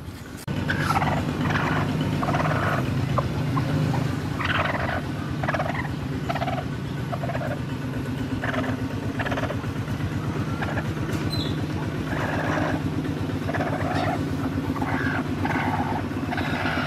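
A hen giving short, repeated clucks and squawks, one every half second to a second, over a steady low droning hum.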